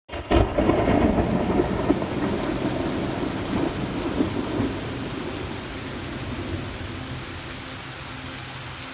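Thunder cracks about a third of a second in and rolls on, fading over several seconds, over the steady hiss of heavy rain.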